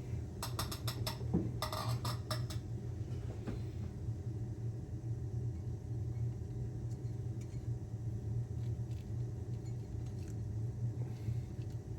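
A steady low machine hum, with a quick run of light metallic clinks in the first few seconds.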